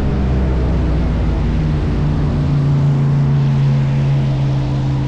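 Airboat's engine and large air propeller running under way, a steady loud drone; the engine note shifts a little in the first two seconds, then holds level.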